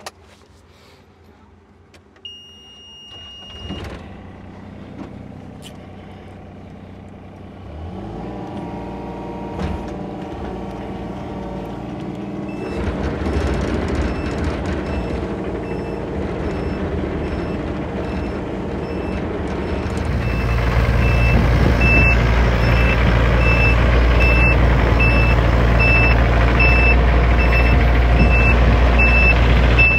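Takeuchi TB325R mini excavator: a short single beep from the cab, then its diesel engine starts and runs, growing louder in steps as it is revved up. About twenty seconds in the machine moves off, its travel alarm beeping steadily over the engine.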